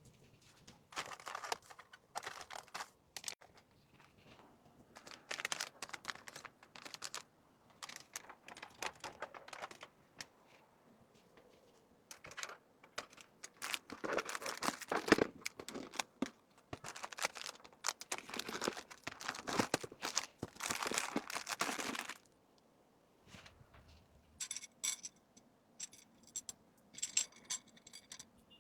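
Plastic packaging being handled, rustling and crinkling in irregular bursts with short pauses between them. Near the end come a few light metallic jingles.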